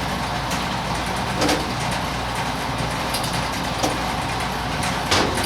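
A few scattered light metal clicks and taps as a bolt is screwed into a rivet nut on a hinge, over a steady low mechanical hum.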